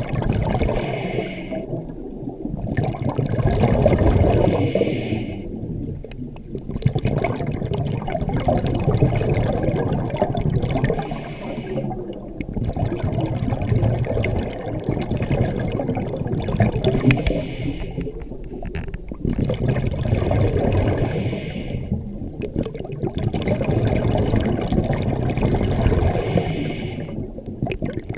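Scuba regulator breathing heard underwater: a slow repeating cycle of breaths drawn through the regulator and exhaled bubbles rushing past, coming round every four to six seconds.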